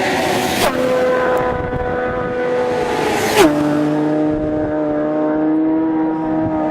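Racing motorcycle engine running hard at high revs, its pitch dropping sharply at two upshifts, about two-thirds of a second in and again about three and a half seconds in, holding level between them.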